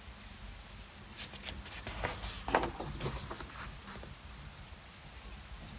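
Crickets chirping steadily as an ambience sound effect, with a few faint soft rustles about a second to three seconds in.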